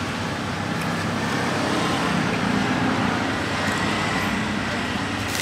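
Steady road traffic noise: an even, continuous rumble and hiss with no sudden sounds.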